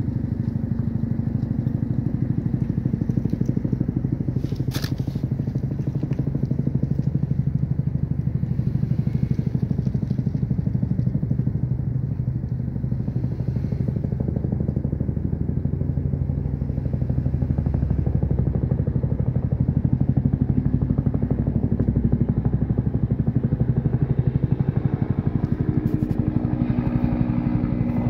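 Bell UH-1N Huey helicopter flying past low: the steady, rapid low beat of its two-blade main rotor, swelling a little in the second half.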